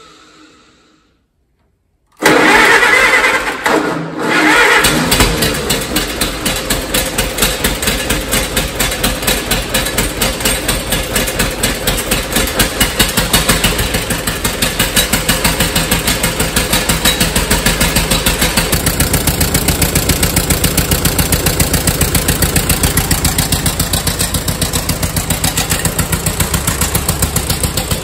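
Allis-Chalmers WD45 four-cylinder gasoline tractor engine firing up about two seconds in, revving unevenly for a few seconds, then settling into a steady run with an even beat. It is the engine's first start in several years after a tune-up, and the owner thinks the carburetor still needs adjusting.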